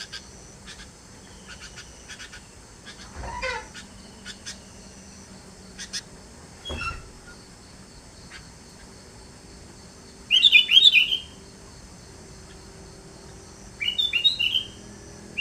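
Sooty-headed bulbul (kutilang) calling: scattered short chirps, then two loud bursts of quick, high song notes about ten and fourteen seconds in.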